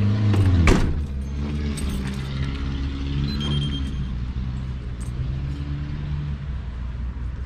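Medium-duty truck's engine idling steadily. About a second in, a door shuts with a single thump, and the idle carries on more quietly after it.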